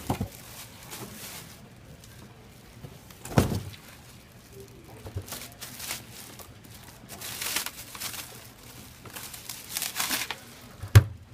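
Packaging being handled while a scooter is unboxed: plastic and paper crinkling and tearing in scattered bursts, with a few knocks, the loudest about three and a half seconds in and a sharp one near the end.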